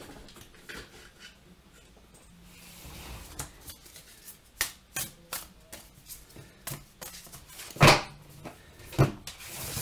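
A deck of cards being handled and shuffled by hand: a run of light card clicks and flicks, then two louder knocks near the end.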